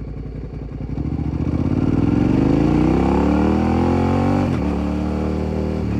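Motorcycle engine pulling away: low, pulsing running for about a second, then rising steadily in pitch as it accelerates, with a gear change about four and a half seconds in and another at the end. Heard from right beside the exhaust.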